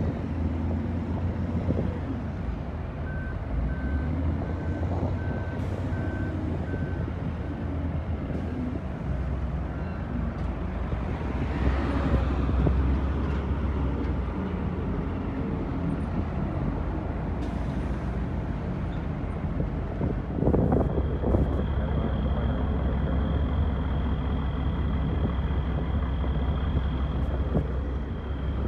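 Heavy diesel dump truck engines running in a quarry, with a reversing alarm beeping about twice a second for several seconds near the start. About twelve seconds in, a truck grows louder as it passes close. A steady high whine joins in the last third.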